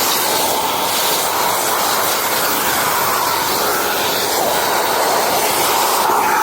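Kärcher WD 4 S wet/dry vacuum cleaner running: a loud, steady whoosh of motor and suction air whose pitch wavers slightly up and down.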